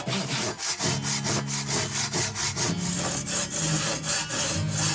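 Japanese double-edged hand saw (ryoba) cutting wood by hand, with quick, even rasping strokes at about four a second.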